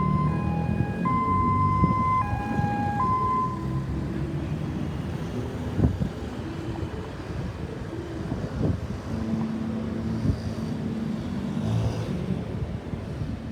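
Ambulance electronic siren sounding a two-tone hi-lo wail, stepping back and forth between two pitches, which cuts off about three and a half seconds in. Low traffic and engine rumble follows.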